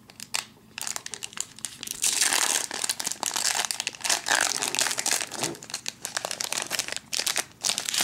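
Foil wrapper of a Pokémon TCG Platinum booster pack crinkling as it is handled and torn open by hand, a dense run of crackles starting about a second in.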